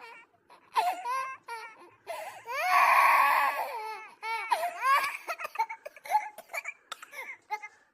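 Stock sound effect of a crowd of children crying: short broken sobbing cries, a long loud wail about two and a half seconds in, then more short sobbing cries.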